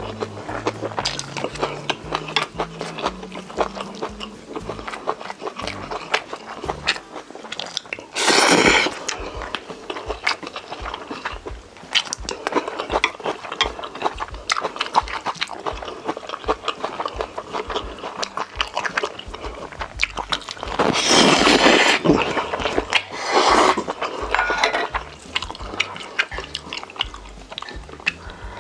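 Close-miked eating sounds: steady chewing and wet mouth smacks of Korean beef bulgogi and japchae, with louder noisy bursts about eight seconds in and twice more near the twenty-one to twenty-four second mark.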